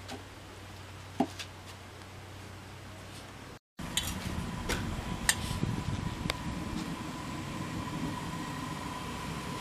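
A steel spoon clinking sharply a few times against a small stainless steel bowl as oil is stirred in it, over a steady low background hum.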